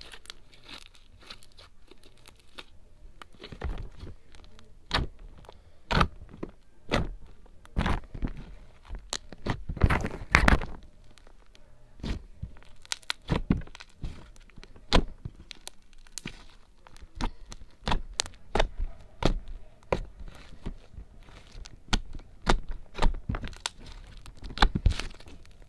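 Gold metallic clear-glue slime being squeezed, stretched and folded by hand close to the microphone. It gives an irregular run of sticky pops and clicks, with louder bunches now and then.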